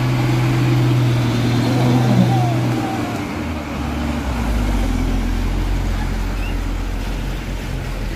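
Diesel engine of a Mitsubishi Fuso Fighter truck running as the truck drives slowly through mud; its low engine note drops lower about three seconds in.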